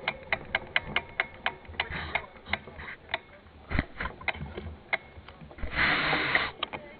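Mountain bike's rear freewheel ticking while coasting, about three to five clicks a second, with a brief rushing noise about six seconds in.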